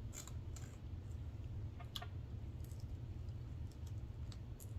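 Faint, scattered small clicks and smacks of fingers and mouth handling and eating sauced chicken wings, over a steady low hum.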